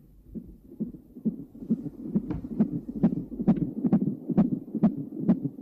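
An unborn baby's heartbeat picked up by a fetal Doppler monitor: a fast, even throb of about two beats a second, growing louder over the first two seconds.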